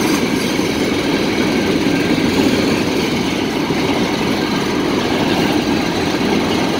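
Covered hopper cars of a freight train rolling past over the rails, a loud, steady rumble of wheels and cars.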